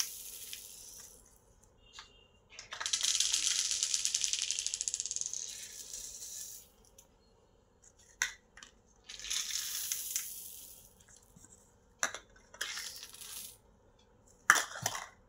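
Beads (plastic and faux-pearl beads) spilling and scattering across a hard tile floor, a dense rattle of many small clicks. It comes in several bursts with quiet gaps between, the longest and loudest about three seconds in, lasting some four seconds.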